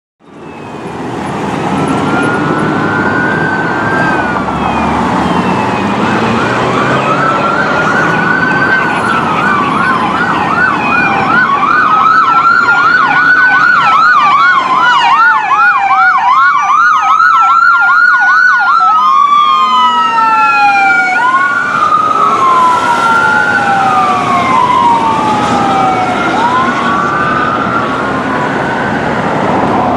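Ambulance's electronic siren sounding as it drives past in traffic. It runs a slow rising-and-falling wail, switches to a fast yelp from about eleven seconds in, then goes back to the wail near twenty seconds, over the rumble of road traffic.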